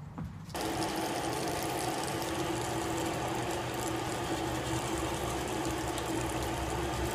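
Steady whir and rush of air from a small electric motor-driven blower, with a steady hum under it; it starts suddenly about half a second in.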